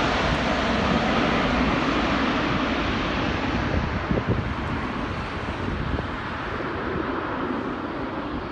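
Jet engine noise of a landing Airbus A350-900 with Rolls-Royce Trent XWB engines, a steady rumbling rush that slowly fades as the aircraft moves away, the hiss dying out first. Wind buffets the microphone.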